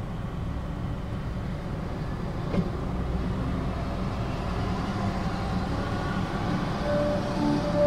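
Suzuki Jimny's 660 cc turbocharged three-cylinder engine idling, heard inside the cabin as a steady low rumble. Light music with mallet-like notes fades in near the end.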